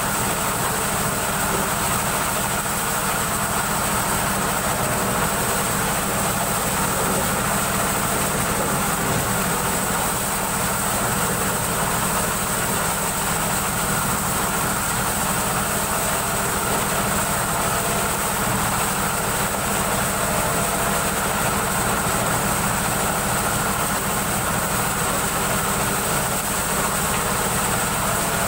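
Motorized corn sheller and the engine driving it, running loudly and steadily while corn cobs are fed into its hopper.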